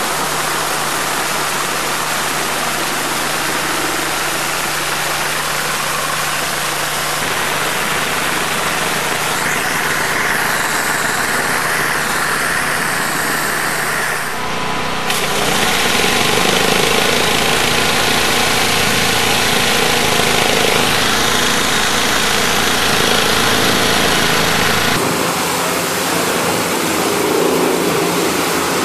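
High-pressure water jets of a rotating undercarriage washer spraying against a car's underbody: a loud, steady hiss of spray with a low hum under it. The sound changes abruptly about halfway and again near the end.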